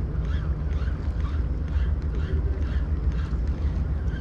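Wind buffeting the microphone, with a faint rhythmic whirr about three times a second from a Daiwa Legalis 3000 spinning reel being cranked fast to work a jig.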